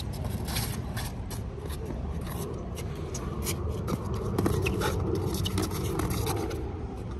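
Sneakers scuffing and shuffling on an asphalt court during boxing footwork, with scattered short slaps of padded boxing gloves.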